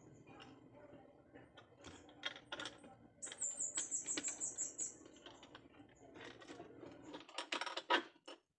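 Light clicks and taps of a metal hand tool working against a wooden board and hull. A quick even run of about ten clicks comes in the middle, and a louder cluster of knocks comes near the end.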